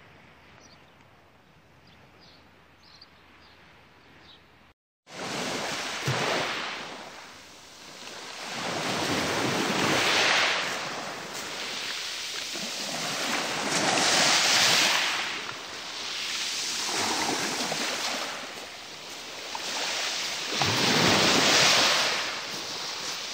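Sea waves breaking on a pebble beach, the surf swelling and falling back about every four seconds. It starts suddenly about five seconds in, after a quiet stretch with a few faint high chirps.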